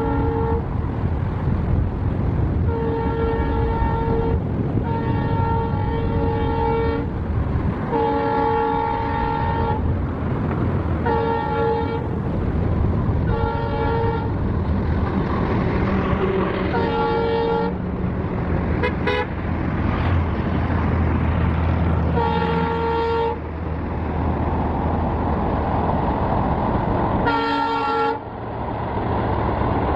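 Diesel locomotive sounding its horn about nine times, in blasts of one to two seconds with irregular gaps, over the steady low rumble of the running train.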